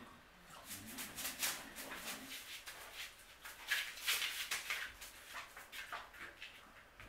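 Newspaper rustling and crinkling under a puppy's paws as it climbs down and moves across the paper-covered floor: a run of short, scratchy crackles.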